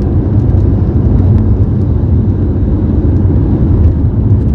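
Steady low rumble of a car driving on a wet road, heard from inside the cabin: engine and tyre noise with faint scattered ticks of rain on the windscreen.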